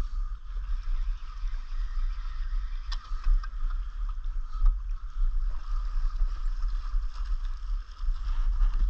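Spinning reel being wound in as a small fish is brought up to the rocks. Underneath is a steady rumble of wind on the microphone and seawater lapping against the rock shelf.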